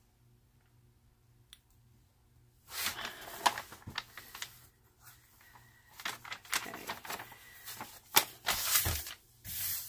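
Quiet for the first few seconds, then crackling and rustling as the protective cover sheet is peeled back from a diamond painting canvas's adhesive surface, with irregular sharp crinkles.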